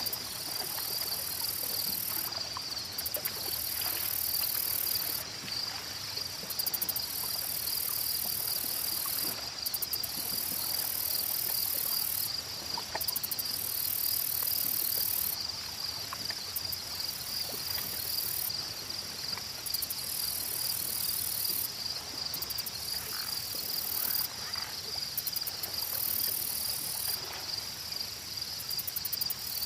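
Forest insects chirring: a steady high-pitched trill runs throughout, while a second, even higher buzz keeps switching on and off every few seconds.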